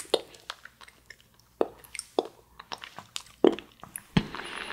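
Wet mouth sounds of eating an orange fruit-shaped jelly held to the lips: irregular sharp smacks, squelches and clicks as the jelly is bitten and sucked.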